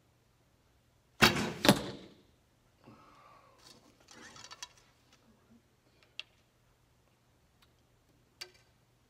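A Hoyt Buffalo recurve bow shot: two loud sharp cracks about half a second apart, the string's release and then the arrow striking the target. Then a softer clatter of arrows in a back quiver as the next one is drawn out, and two light clicks near the end as it is fitted to the string.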